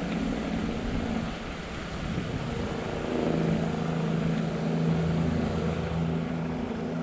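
A steady engine drone under wind noise on the microphone; about three seconds in the drone settles a little lower in pitch and grows slightly louder.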